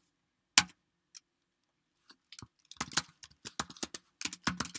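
Computer keyboard keystrokes: one sharp key press about half a second in, then a quick run of key clicks from a little before the three-second mark as a short command is typed.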